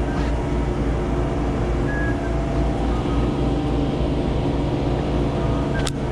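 A boat's motor running steadily with a low, even drone, and a sharp click near the end.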